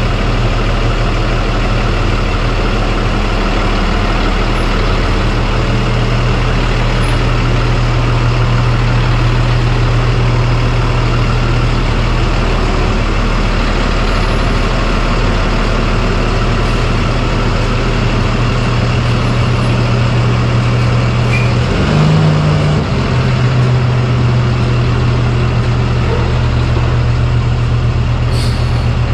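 A vehicle engine running steadily at idle, with a brief rise in revs about three-quarters of the way through.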